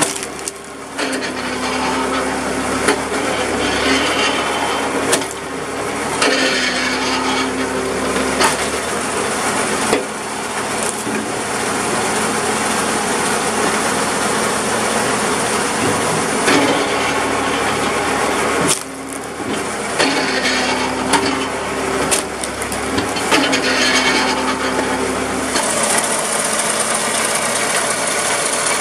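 Tractor engine running the PTO-driven hydraulic pump of a homemade wood splitter, with a steady tone that comes and goes several times as the ram works. Sharp cracks and knocks of oak rounds splitting and pieces being handled.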